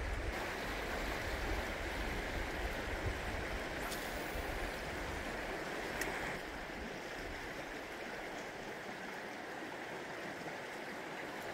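Steady rush of a river flowing over rocks and shallow riffles.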